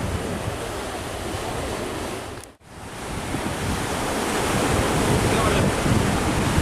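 Airliner jet engine noise, a steady rushing roar with wind buffeting the microphone; it drops out abruptly about two and a half seconds in and swells back up louder.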